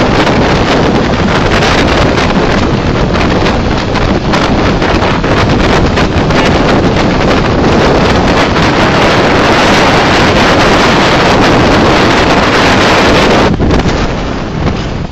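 Heavy wind rushing over the microphone of a camera carried on a moving motorcycle, loud and continuous, easing briefly near the end.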